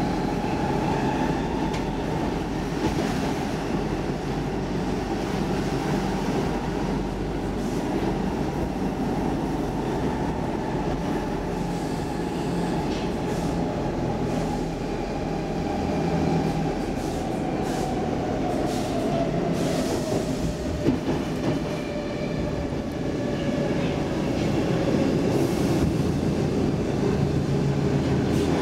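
Stockholm Metro C14 subway car running, heard from inside: a steady rumble with a whine that slowly falls in pitch in the second half, and a few clicks from the wheels on the rails.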